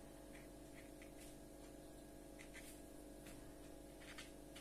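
Near silence: faint, scattered scratches of a black marker pen stroking across paper as shadows are inked in, over a low room hum.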